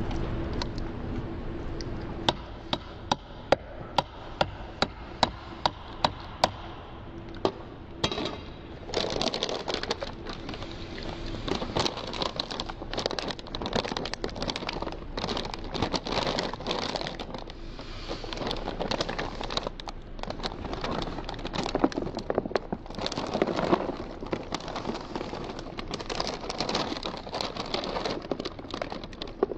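A spoon clicking against a plastic food container about twice a second, then a plastic bag crinkling and rustling as dry cereal is poured from it into the container.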